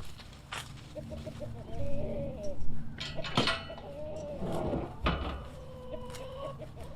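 Farm animals calling: several wavering calls of about a second each, with a few sharp knocks among them.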